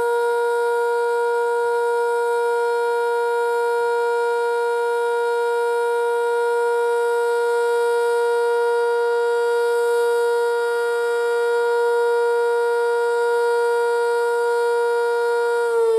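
Sentry 5V electromechanical outdoor warning siren sounding a steady alert tone at one unchanging pitch, then beginning to wind down, its pitch falling, right at the end.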